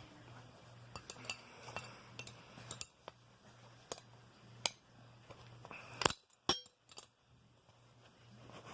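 Light metallic clinks and clicks of steel wrenches working against a brass padlock's shackle as they are levered to force it open, with two sharper metal knocks close together about six seconds in.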